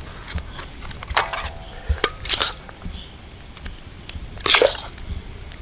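A metal ladle stirring and lifting crabs in thick masala gravy in a large iron pan: scattered clicks and several short scrapes of metal against the pan and the crab shells.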